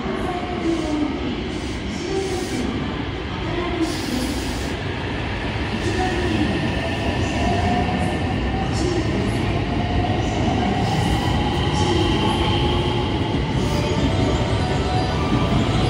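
Electric commuter train pulling out of a station platform: its traction motors give a whine that rises in pitch from about six seconds in as it picks up speed. The rumble and wheel clatter grow louder as it goes.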